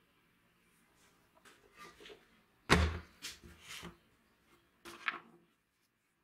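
A wooden box full of old metal pliers and hand tools is set down on a wooden table with a heavy thud a little under three seconds in, and the tools rattle inside it. Lighter knocks and metal clinks of the tools being handled come before and after.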